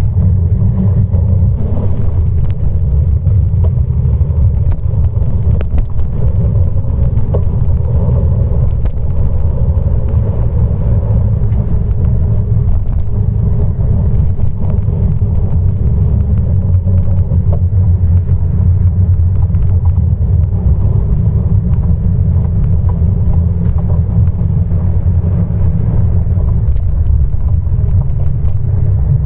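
Wind buffeting the microphone of a camera riding along on a moving bicycle: a steady, loud low rumble.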